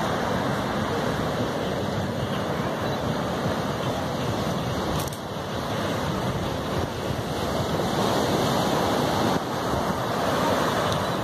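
Ocean surf breaking and washing up a sandy beach: a steady rush of water that grows louder about two-thirds of the way in.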